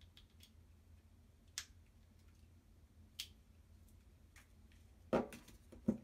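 Handling of a laptop's USB-C power adapter and cable on a desk: a couple of light clicks, then two louder soft knocks near the end as things are set down.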